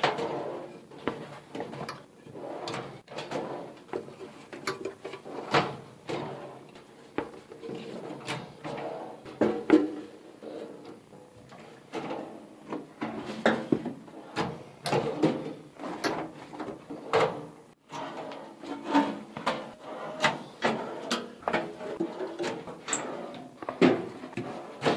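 Drawers of a steel rolling tool cabinet being worked and handled: a string of irregular knocks, clicks and short slides.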